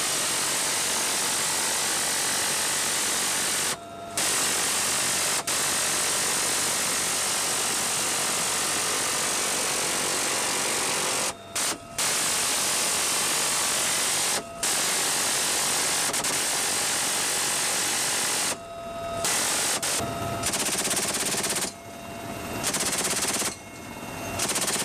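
Helicopter door gunner's machine gun firing long, unbroken bursts of several seconds each, stopping suddenly for brief pauses about seven times, with the helicopter's steady turbine whine heard in the gaps.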